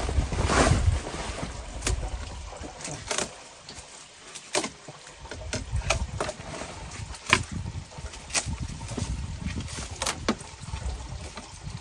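Plastic wrapping film and cardboard being pulled and cut off a bamboo furniture frame: rustling and crinkling with many scattered sharp crackles.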